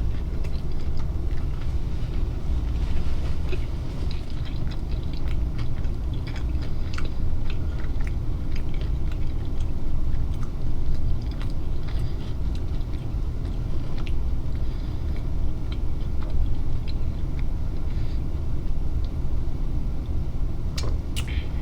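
Close-miked chewing and mouth sounds from eating a fish taco, with many small wet clicks and crackles, over a steady low hum.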